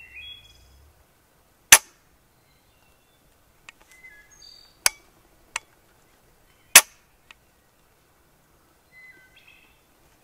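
Cheap shotgun misfiring: sharp clicks as the trigger is pulled and the shell fails to go off, repeated several times, the loudest about two, five and seven seconds in. Short bird chirps come between them.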